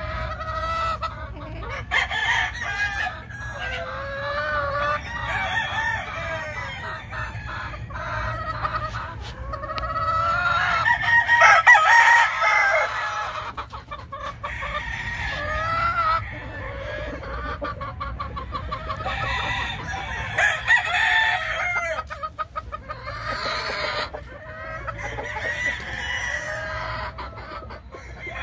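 Gamefowl chickens calling: roosters crowing and hens clucking, one call after another, loudest near the middle.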